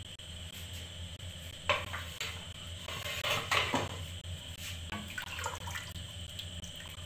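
Aluminium pressure cooker lid being twisted and lifted off, with a few sharp metallic clanks, then a wooden spatula stirring the thin beef nihari broth, the liquid sloshing. The pressure is already down, so there is no hiss. A steady low hum runs underneath.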